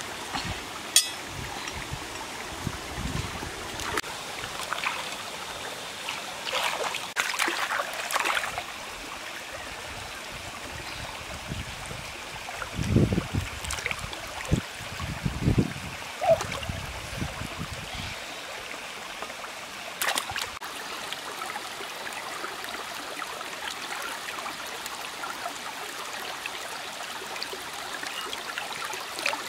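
Shallow stream running over rocks, with a few splashes and thumps about halfway through as hands and feet move in the water.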